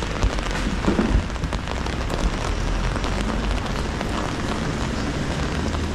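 Steady rain falling on a city street: a dense patter of drops over a low rumble, with a few louder knocks about a second in.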